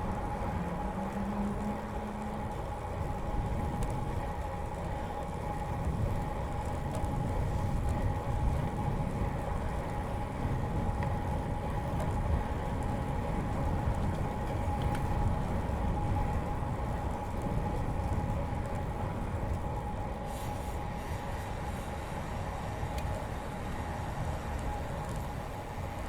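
Riding noise from a moving bicycle: wind rumbling on the microphone and tyres rolling on the paved bike path, with a steady humming tone over it.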